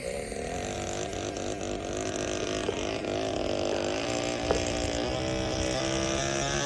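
Twin 50 mm electric ducted fans of an RC Su-27 model jet whining, the pitch wavering with throttle and rising higher and louder near the end. A brief click about four and a half seconds in.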